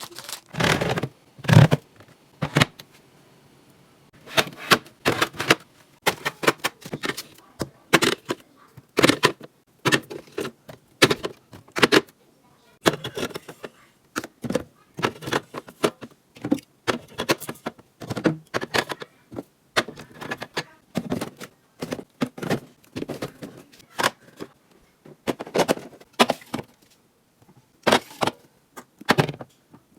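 Irregular knocks and clatter of plastic containers and other items being picked up, set down and shifted, dozens of separate sharp taps with short pauses between them.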